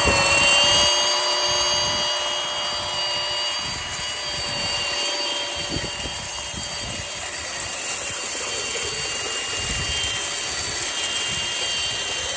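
Power drive of a sectional drain-cleaning machine running, spinning 16-foot eel cable down a sewer cleanout: a steady motor whine over a rushing hiss.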